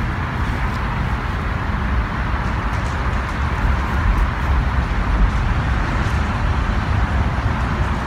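Steady traffic noise from a nearby highway, with tyres and engines blending into one constant rush.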